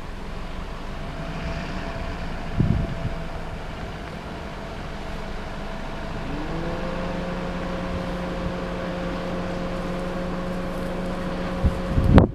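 A motor vehicle's engine runs steadily under wind noise on the microphone. Its hum rises briefly about six seconds in, then holds at a new pitch. There is a short thump about two and a half seconds in and a louder rumble just before the end.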